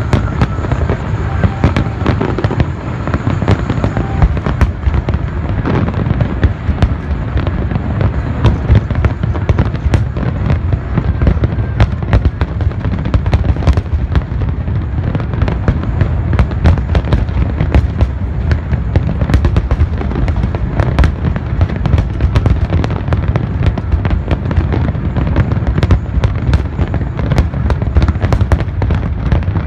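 A fireworks display: a rapid, continuous run of sharp bangs and crackles over a deep, steady rumble.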